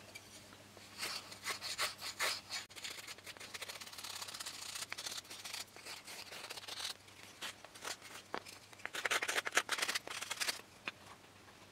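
Small balsa plane shaving a balsa wood tip block in repeated short strokes, each pass a dry scraping rasp. The strokes come faster and louder near the end.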